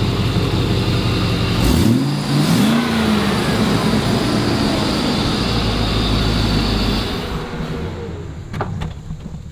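A 2008 Isuzu NPR box truck's engine running at idle, revved quickly about two seconds in with the pitch shooting up and then sinking back to idle. It settles into a steady idle and grows quieter near the end.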